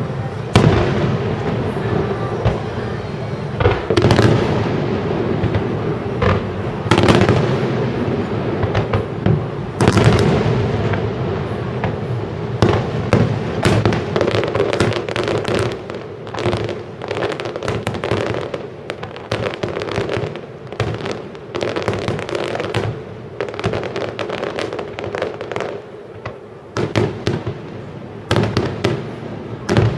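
Fireworks display: aerial shells bursting with sharp bangs, densest as a rapid barrage of overlapping bangs and crackles through the middle, thinning to a few separate bangs near the end.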